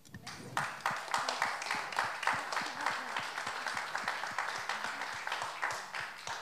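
Audience applauding: many hands clapping at once, starting right away and fading out near the end.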